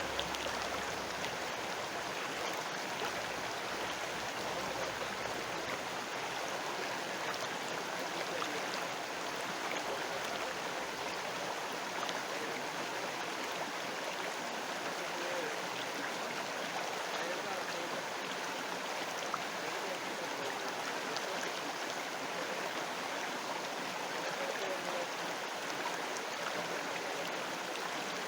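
River water flowing steadily, an even, unbroken wash of water noise.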